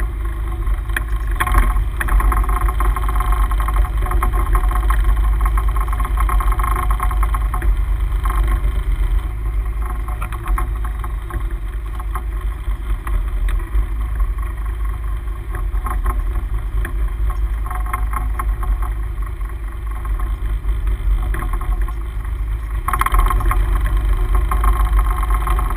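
Steady noise of a sportfishing boat at sea: motor drone and water washing along the hull, with heavy low wind rumble on the microphone. The noise swells and eases several times.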